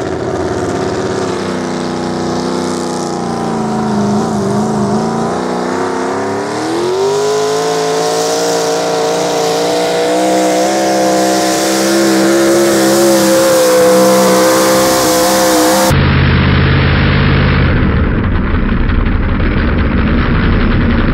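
Supercharged pulling-truck engine straining under load as it drags a weight-transfer sled. The revs sag a few seconds in, climb steeply and hold high, then the engine note cuts off suddenly near the end, leaving a rough rumble.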